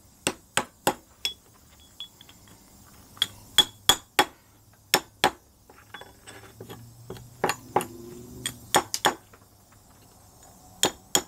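Chipping hammer striking the edge of a plasma-cut metal piece to knock off the dross: sharp metallic clinks in short bursts of two to four strikes, with pauses between bursts.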